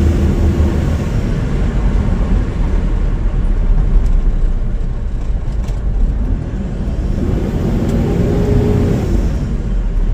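Engine and road noise inside the cabin of a Toyota Innova driving in fourth gear on a road test of its repaired automatic transmission, a steady low rumble.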